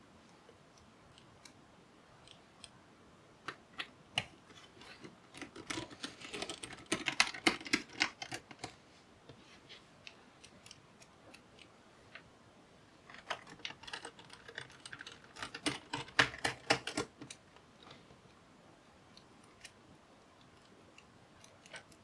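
Small screwdriver clicking and ticking against the laptop's metal base panel as the base screws are driven back in. The clicking comes in two bursts of rapid clicks, about six seconds in and again around fourteen seconds, with scattered single clicks between.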